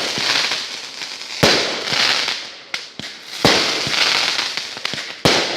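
Multi-shot consumer firework cake firing: three sharp bangs about two seconds apart, each followed by a crackling tail that fades away.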